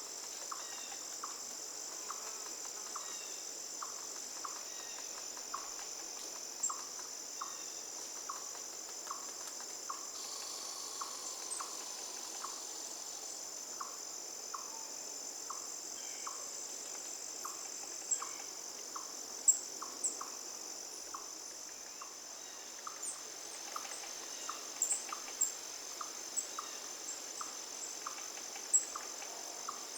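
Insects chirping: a steady high trill overlaid by a lower chirp repeating about twice a second. Scattered sharp clicks come in the second half.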